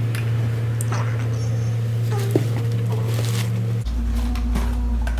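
Tissue paper and packaging rustling as shipped succulents are unwrapped, over a loud steady low hum that shifts to a deeper hum about four seconds in.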